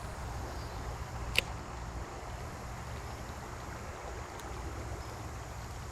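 Steady outdoor background noise, a low rumble under a light hiss, with one sharp click about a second and a half in.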